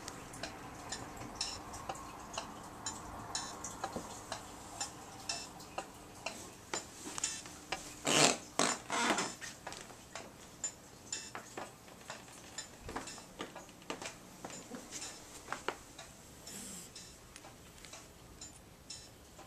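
Steady light ticking, about two clicks a second, with a brief cluster of louder knocks and rustling about eight seconds in.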